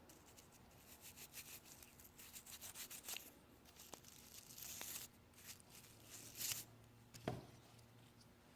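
Small brush scrubbing a carburetor part: faint, quick, scratchy strokes with a few longer scrapes, and a single knock about seven seconds in.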